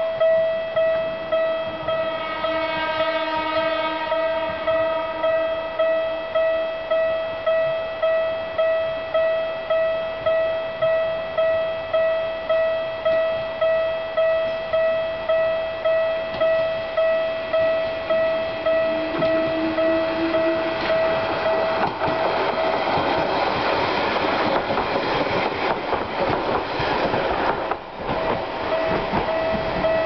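Japanese railway level-crossing alarm ringing with an even, repeating clang, about three strikes every two seconds. A train horn sounds a couple of seconds in. Near the end a small electric commuter train runs over the crossing, its wheels clattering on the rails and drowning out the bell for several seconds before the alarm is heard again.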